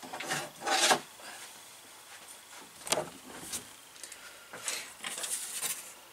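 Handling noises at a workbench: a few knocks and rustles, the loudest just before a second in, a sharp click near three seconds, then scraping and rustling around five seconds as a metal sliding caliper is opened and a thin laser-cut plywood sheet is picked up to be measured.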